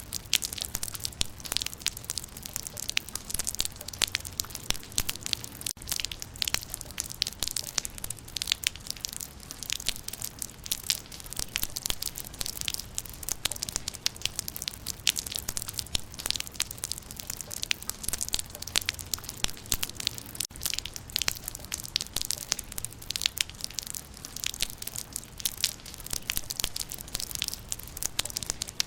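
Rain falling on leaves: a dense, continuous patter of many sharp drop ticks over a low steady rumble.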